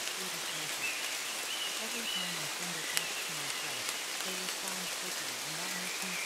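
Steady rain hissing, with one sharper tick about three seconds in. A faint, low voice of looped subliminal affirmations is mixed in beneath the rain.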